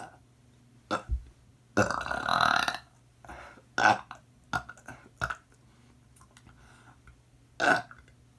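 A person burping repeatedly: a string of short burps, one longer burp lasting about a second about two seconds in, and a last burp near the end after a pause of a couple of seconds.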